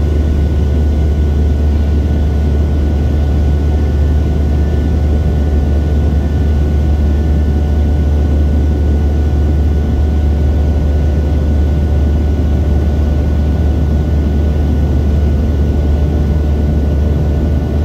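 Boeing 737-700 cabin noise in flight, heard from a window seat over the wing: its CFM56-7B turbofans and the airflow make a loud, steady low drone with faint steady whining tones above it.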